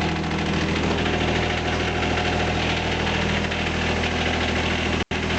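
John Deere 455's three-cylinder Yanmar diesel running steadily after a cold start in below-zero weather, with a brief cut-out near the end.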